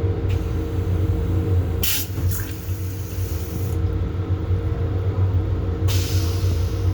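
Steady low hum and rumble of a Metro-North M7 electric railcar, heard from inside its restroom. Short hissing sounds come about two seconds in and again near the end.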